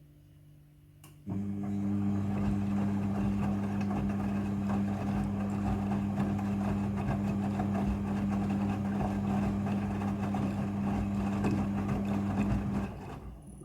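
Midea front-loading washing machine starting a steady electric hum with water rushing through it about a second in, holding evenly for about eleven seconds, then stopping shortly before the end. This is a water stage of the rinse cycle.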